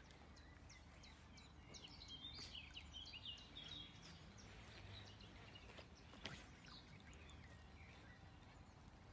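Faint outdoor ambience with small birds chirping in quick, short high calls, busiest from about two to four seconds in, and one soft knock about six seconds in.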